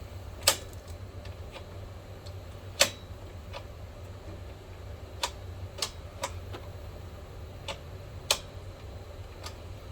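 Projector cooling fans running with a steady low hum, with about ten sharp clicks at irregular intervals, the loudest about half a second, three seconds and eight seconds in.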